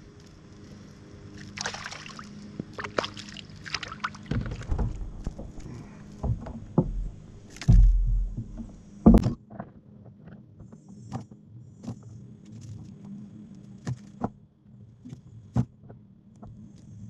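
Irregular knocks and bumps on a plastic sit-on-top kayak with light water sloshing, as a hooked pickerel is reeled in and lifted aboard. A heavy thump comes about eight seconds in, followed by a sharp knock.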